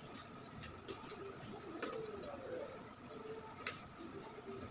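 Tailor's scissors cutting through fabric, giving a few sparse, sharp snips spread across a few seconds.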